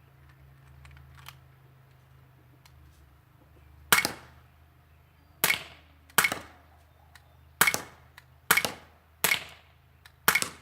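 Sig Sauer P226 air pistol firing pellets: seven sharp shots at uneven intervals, starting about four seconds in, after a few faint handling clicks.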